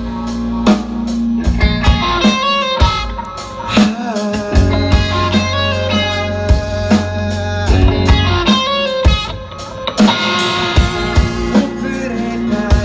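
Rock band's instrumental break without vocals: electric guitar playing a melodic line with bends over a drum kit and bass.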